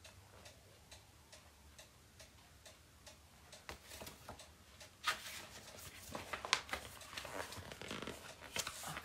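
Faint ticking of a cuckoo clock in a small room. About five seconds in, louder irregular clicks and rustling join it.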